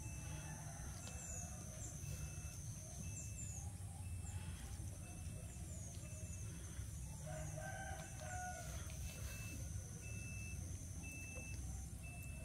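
A rooster crowing once, about seven seconds in, over a steady high thin tone and a short high chirp that repeats about once a second.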